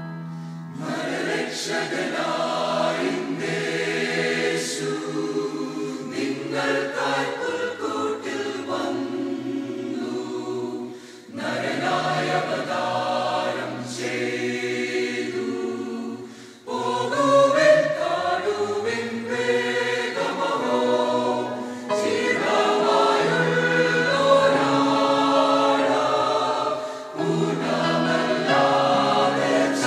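Mixed-voice choir singing in parts over electric keyboard accompaniment, with low notes held underneath. The singing breaks off briefly twice between phrases.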